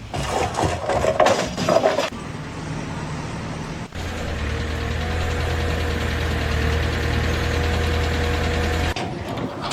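About two seconds of irregular clattering noise, then an engine running steadily with a low hum and a faint whine over it, cutting off abruptly near the end.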